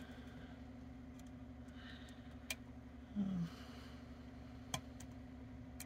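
A few faint clicks of a hook pick working the inner pins of a Mul-T-Lock Interactive cylinder under tension, two of them sharp, about two and a half and four and a half seconds in, over a steady low electrical hum.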